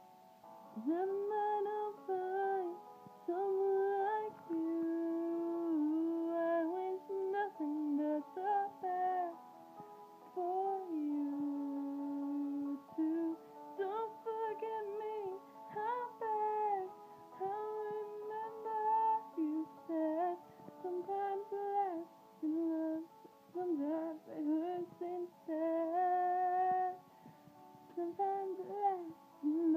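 A young woman singing a slow melody in phrases of a few seconds, over soft sustained backing notes.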